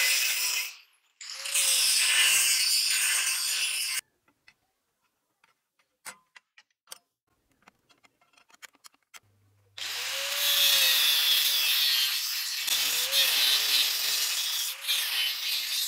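Angle grinder with a thin cutting disc cutting a spring-steel knife blank: two short cuts at the start, then a few quiet seconds of light clicks and taps, then a long cut from about ten seconds in. During the cuts the motor's pitch dips and recovers as the disc bites into the steel.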